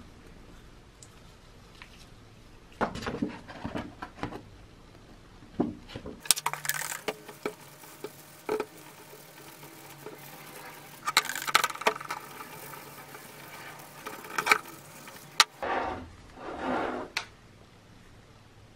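Hard plastic drill housing parts being handled and fitted together over a wooden workbench: scattered clicks and knocks, denser scratchy handling in the middle, and a longer scraping rub near the end.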